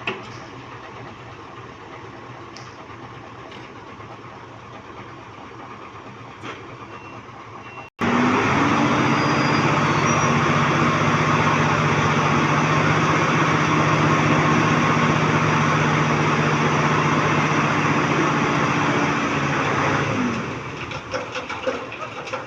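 Heavy diesel dump truck engine: low running for the first several seconds, then, after an abrupt change, running loud and steady at high revs for about twelve seconds before the revs drop back near the end.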